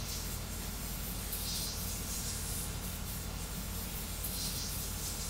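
3D printer printing at high speed: a steady low hum and fan hiss, with a higher hiss that swells and fades every second or so.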